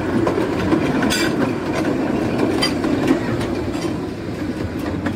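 Narrow-gauge passenger train running, heard from on board: a steady rumble of carriage wheels on the rails, with a few sharp clicks over the rail joints.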